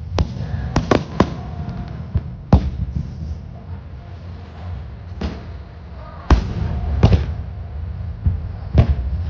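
Aerial fireworks bursting: about ten sharp bangs at uneven intervals, several in quick succession near the start and single loud reports later, over a steady low rumble.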